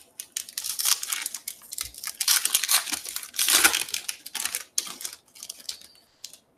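Foil wrapper of a 2018 Topps Stadium Club baseball card pack being torn open and crumpled by hand: a dense crinkling crackle that thins out near the end.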